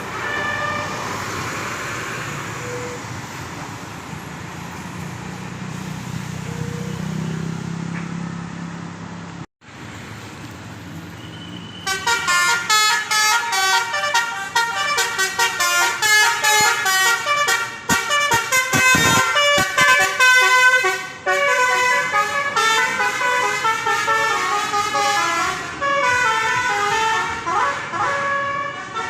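A bus engine running with road noise, then, a little under halfway through, a Basuri telolet horn (a multi-tone musical bus horn) starts playing a fast melody of short, changing notes and keeps on to the end.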